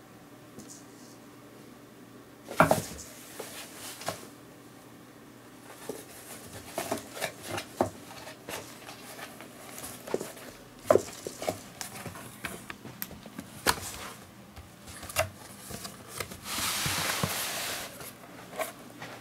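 Cat moving around inside a cardboard box: irregular knocks, taps and scratches against the cardboard, with a longer rustling scrape near the end.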